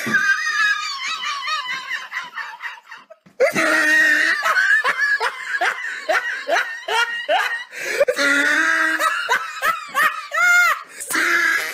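Recorded laughter, loud cackling with repeated 'ha-ha' bursts, played over and over as a looped clip, with a brief break about three seconds in.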